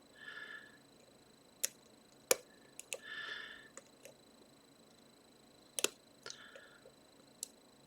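Faint metallic ticks and short scraping rasps of a hook pick working the pins of an Abus GDS padlock, which has Christmas-tree and tapered pins. Three brief scrapes are scattered among half a dozen sharp clicks.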